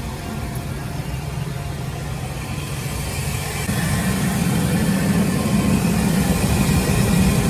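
Van engine noise, a steady low drone that gets louder a little past halfway through.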